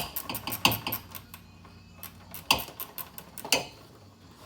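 Hand tools clicking and clinking against metal while a 10 mm bolt on a bracket is undone. A quick run of light clicks near the start, then two sharper clinks about a second apart near the end.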